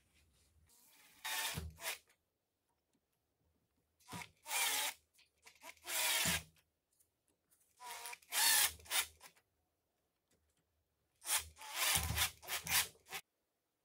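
Cordless drill run in about five short bursts of a second or two each, with pauses between.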